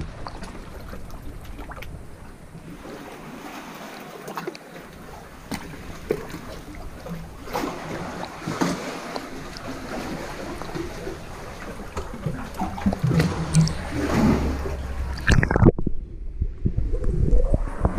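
Sea water lapping and splashing around a camera held at the surface, growing louder as it goes. Near the end the sound turns muffled as the camera goes under the water.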